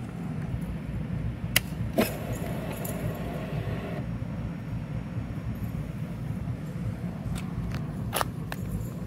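Ignition key turned on a 2018 Honda CBR1000RR SP: two clicks, then a faint even hum for about two seconds as the fuel pump primes. A few more switch clicks come near the end, over a steady low background rumble.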